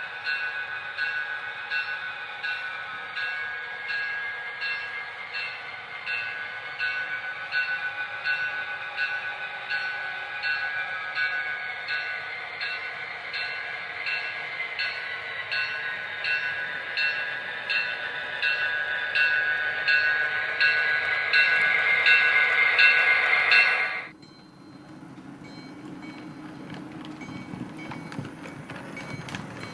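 Model steam locomotive (Bachmann Spectrum Pennsylvania Railroad K4) running with its train: a steady motor whine that drifts up and down with speed, with regular clicks about one and a half times a second. The sound cuts off suddenly about 24 seconds in, leaving a faint low hum.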